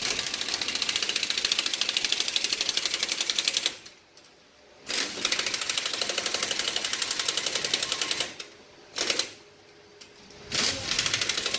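Pneumatic impact wrench hammering in bursts: a fast, even rattle that runs for a few seconds, stops, runs again for a few seconds, gives a short blip, then starts once more near the end.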